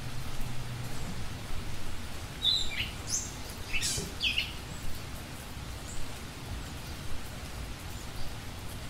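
A few short bird chirps, each sweeping downward in pitch, come in a quick cluster from about two and a half to four and a half seconds in. They sit over a steady background hiss.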